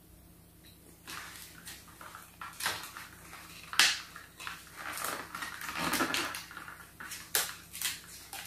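Toy packaging being handled and opened to free a small figure: irregular rustling and crinkling with sharper crackles, loudest about a third of the way in and near the end.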